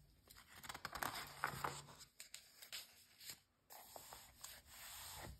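Glossy magazine page being turned and smoothed flat: paper rustling and sliding, loudest about a second in, with a few light clicks.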